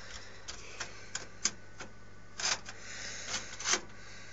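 Small metal computer parts being handled and fitted into a PC case: scattered light clicks and a few short scrapes, with the sharpest click about a second and a half in.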